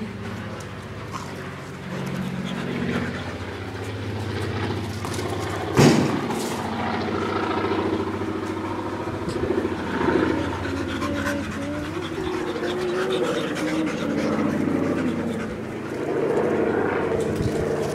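Two dogs panting as they play, over a steady low engine-like hum. There is one sharp thump about six seconds in, and wavering pitched sounds from about eight seconds on.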